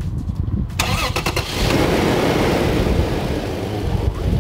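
Toyota Land Cruiser Prado 120's 4.0-litre 1GR-FE petrol V6 cranked briefly by the starter, catching about a second and a half in and then running steadily. The engine sounds healthy: "just a perfect sound, this is how an engine should run".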